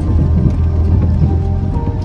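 Background music with held notes over a steady low rumble of a car driving.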